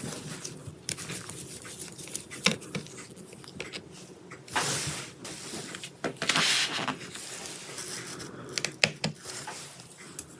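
Hands working on the open laptop: scattered small clicks and taps of plastic and metal parts, with two longer scraping, rustling noises about four and a half and six seconds in.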